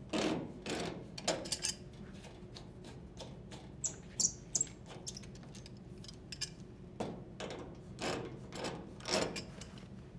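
Channel-lock pliers working the threaded metal coupling of a washer's water supply hose off its inlet valve: scattered clicks, scrapes and small metal knocks, in two clusters, one at the start and one about seven seconds in.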